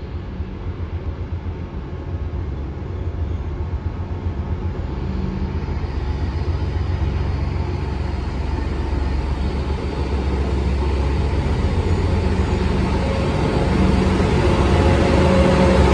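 Trenitalia D445 diesel locomotive hauling an Intercity train as it approaches, its engine rumble and hum growing steadily louder as it nears. Higher steady tones join in over the last few seconds as the locomotive draws close.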